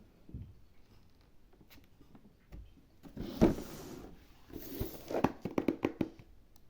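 A plastic toy stunt car being handled: rubbing and scraping, a louder stretch about halfway through, then a quick run of sharp plastic clicks and knocks near the end.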